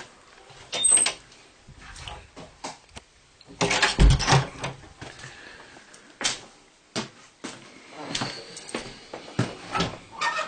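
Scattered knocks and clatters of a door being handled, opened and shut, the loudest a heavy thump about four seconds in.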